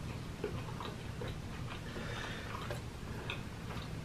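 Eating sounds: irregular light clicks of a fork against metal serving trays, a few a second, over a steady low hum.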